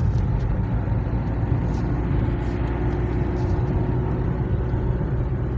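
Road and engine noise inside a moving car's cabin: a steady low rumble, with a faint steady hum joining about halfway through.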